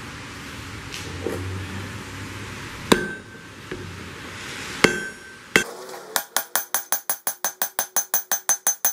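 Hand hammer striking a hot iron bloom on a steel anvil, with light blows to consolidate the spongy smelted mass. A steady forge rush comes first, then a few separate strikes. After that comes a quick, even run of ringing blows, about five a second.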